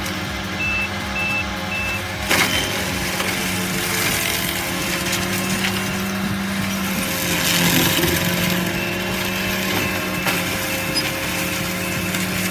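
A heavy machine's engine running steadily, with a reversing alarm beeping three times near the start and again faintly near the end. A sharp crack comes about two seconds in.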